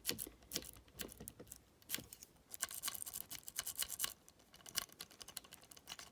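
Cross-lock jiggler being raked and jiggled in the keyway of a cross lock: a string of small metallic clicks and scrapes, turning into a fast rattle from about two and a half to four seconds in.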